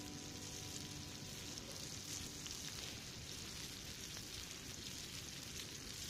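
Eggs frying in butter in a pan over an open log fire: a steady sizzle with fine crackling.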